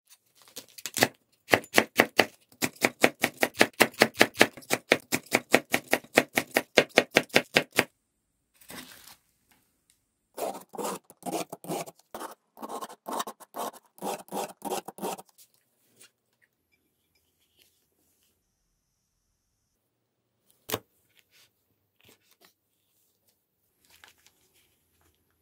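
A kitchen knife chopping rolled cabbage leaves into shreds on an end-grain wooden cutting board: a fast, even run of sharp strokes, about five a second, for about seven seconds. After a short pause, a julienne peeler scrapes along a carrot in a quicker run of softer strokes for about five seconds. Near the end there is one sharp knock and some faint handling.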